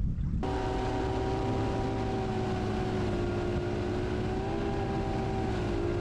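Boat motor running at a steady speed, starting abruptly about half a second in; its pitch shifts slightly a couple of times, with wind rumble underneath.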